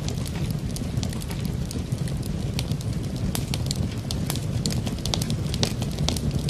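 Wood fire in a fireplace crackling: many sharp, irregular pops and snaps over a steady low rumble of the flames.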